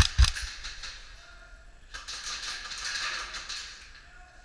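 Airsoft gunfire: two sharp shots with a thump right at the start, then a fast run of rattling clicks about two seconds in that lasts over a second.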